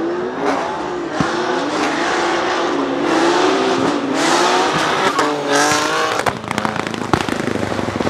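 Drift car engine revving hard and swinging up and down as the throttle is worked, over screeching tyres. About six seconds in the revs climb, then the engine note cuts away into a run of irregular crackles and pops.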